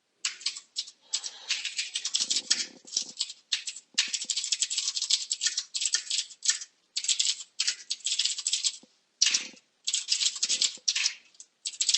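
Computer keyboard typing: rapid runs of keystrokes in bursts with short pauses between them.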